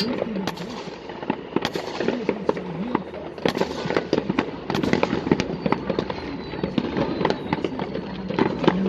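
Fireworks going off: an irregular run of sharp bangs and crackles, several each second, with people's voices faintly underneath.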